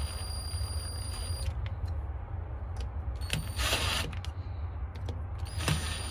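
Hand work on a homemade valve spring compressor clamped to a cylinder head: three short rasping, scraping bursts of metal tools over a steady low hum.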